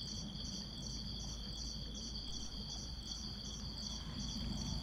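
Crickets chirping: a steady high trill with a pulsed chirp about three to four times a second, over a low hum of background noise.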